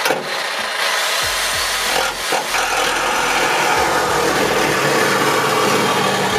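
A cutting tool working on the Civic's sheet-metal body, cutting out the webbing: a steady rasping, sawing noise, with a short jolt near the start and another about two seconds in.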